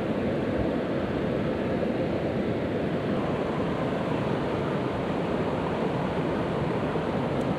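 Steady rushing of a hill stream's flowing water, an even noise with no change in level.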